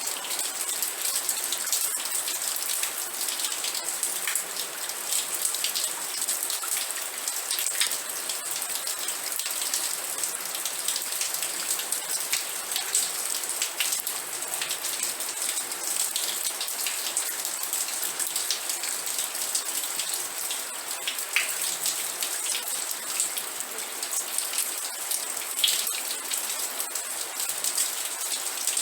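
Steady rain falling, a dense even hiss of drops with scattered individual drips ticking through it.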